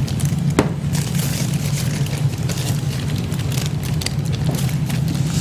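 A steady low hum, with light rustling and crinkling of baking paper being peeled off a baked Swiss roll sponge sheet. A sharper crackle comes about half a second in.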